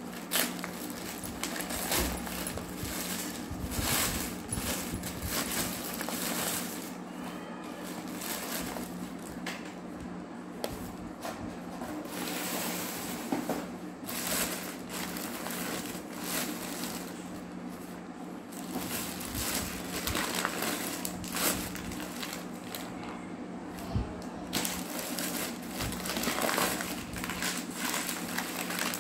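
Thin plastic bags crinkling and rustling as hands pull them open inside a cardboard box, with scattered sharp crackles and clicks, over a steady low hum.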